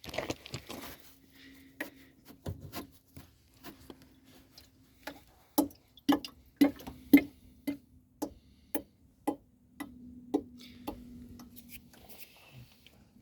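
Sharp, unevenly spaced knocks, roughly one or two a second, from a Lada Granta's cooling system over a low steady hum. The owner puts the knocking down to the coolant.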